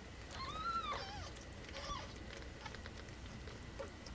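Newborn kitten mewing: one high, arching cry about half a second in, then a shorter, fainter mew near the two-second mark.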